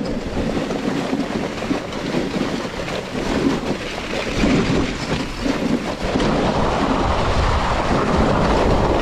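Dog sled running over a packed snow trail: the runners scrape and rattle over the snow with a steady rumble, which grows louder about six seconds in.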